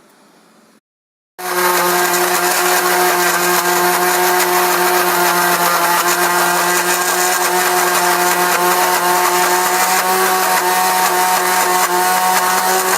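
Electric kitchen blender running with a steady motor whine as it grinds a spice paste of shallots, garlic, candlenut, ginger, galangal, turmeric and coriander loosened with a little oil. It starts abruptly about a second and a half in.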